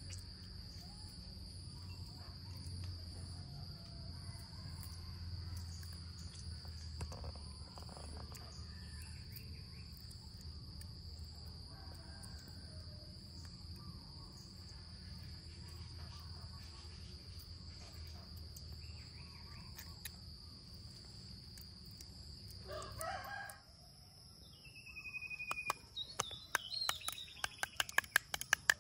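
Rural outdoor ambience: a steady high insect drone with a rooster crowing. The sound changes abruptly a few seconds before the end, where a short falling bird whistle is followed by a quick run of sharp clicks.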